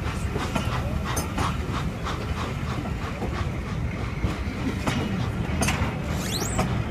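Passenger coaches rolling past alongside a platform: a steady low rumble of wheels on rail, with irregular sharp clicks as the wheels cross rail joints. A brief rising high squeal comes near the end.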